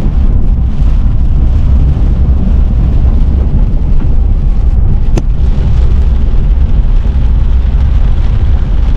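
Car driving on the road: a loud, steady low rumble of road and engine noise, with a single sharp click about five seconds in.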